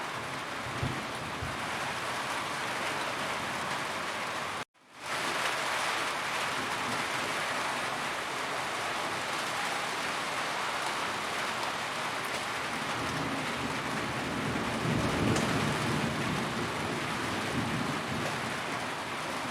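Steady heavy rain drumming on a roof, a dense even hiss. It cuts out for a split second about five seconds in and comes straight back, and a low rumble of thunder swells about fifteen seconds in.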